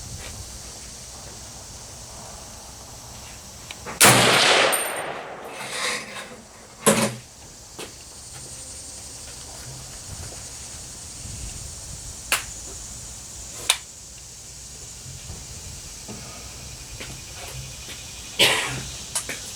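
Shots from a .308 M1A semi-automatic rifle: a loud shot about four seconds in and another near the end, each followed by a long echo. Shorter, sharp cracks fall between and after them.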